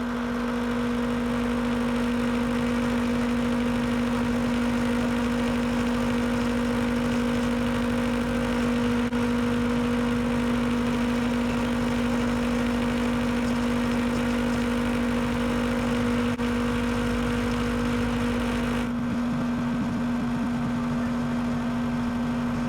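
A power tool's motor running steadily with a whir, its note thinning about nineteen seconds in.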